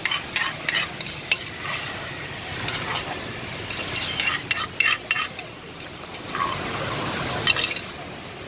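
A spoon scraping and knocking against a clay mortar as pounded green papaya salad is scooped out into a plastic bag, in irregular clicks and scrapes, with a plastic bag crinkling near the end.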